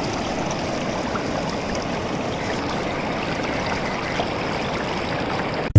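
Steady rush of fast-flowing water, cutting off suddenly at the very end.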